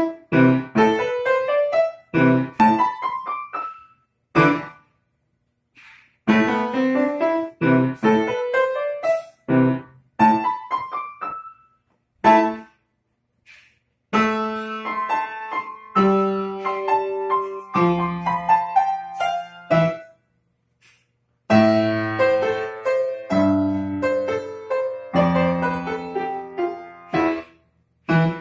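Upright piano played by a young child, in short phrases: quick rising runs of notes first, then slower phrases of held notes stepping downward. Each phrase stops cleanly, leaving a brief gap before the next.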